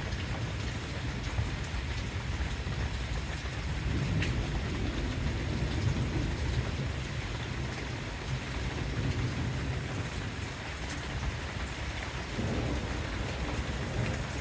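Steady heavy rain falling during a thunderstorm, with low rolling thunder swelling and fading, most strongly a few seconds in and again near the end.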